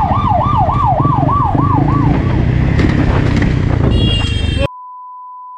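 A siren wails in quick falling sweeps, about two a second, over the low rumble of motorcycle riding and wind, and fades after about two seconds. Near the end a short high tone sounds, then the sound cuts off abruptly and a steady pure beep follows.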